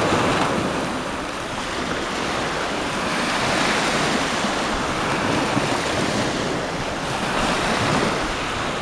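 Sea waves breaking and washing in surf, with wind buffeting the microphone. The sound swells and eases in slow waves.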